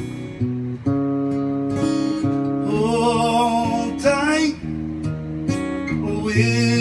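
Cutaway steel-string acoustic guitar strummed through a chord progression between sung lines, with a wordless vocal ad-lib with vibrato about three seconds in and again near the end.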